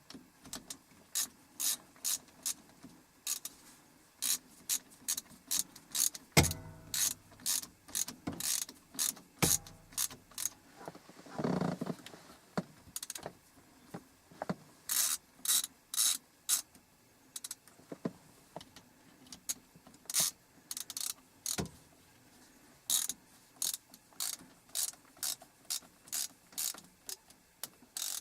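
Hand ratchet clicking in short runs, a few clicks a second with pauses, as the bolts of a short-throw shifter are run down. One louder knock about six seconds in and a brief scrape a little before halfway.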